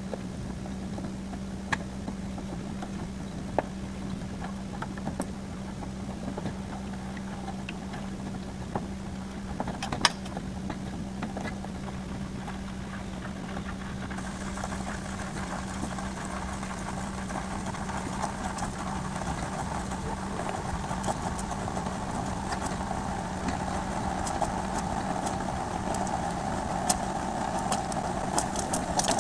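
Wooden spatula scraping and tapping around a small saucepan of sweet bean paste on a portable gas stove, over a steady low hum. About halfway through a higher hiss joins, and small pops grow more frequent toward the end as the paste heats.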